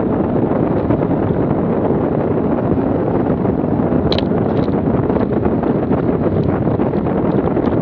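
Steady, loud wind buffeting on an action camera's microphone during a fast bike descent at about 60–70 km/h, with one brief sharp click about four seconds in.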